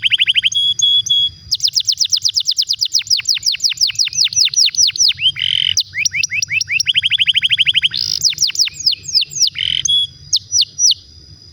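Canary singing: fast rolling trills of downward-sweeping notes, about eight a second, in several runs with brief breaks, ending in a few separate notes shortly before it stops.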